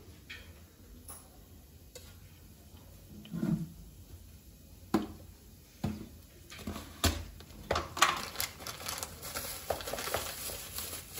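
Scattered light clicks and knocks of a spice container and kitchen utensils being handled, coming thicker in the second half.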